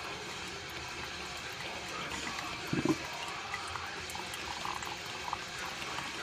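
Drip coffee maker brewing: a steady hiss and trickle of coffee running into the glass carafe, with one louder gurgle about halfway through.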